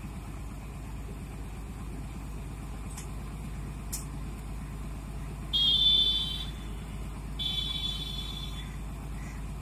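Truck-mounted mobile crane's diesel engine idling steadily, with two shrill high-pitched tones of about a second each a little past halfway, the first one louder.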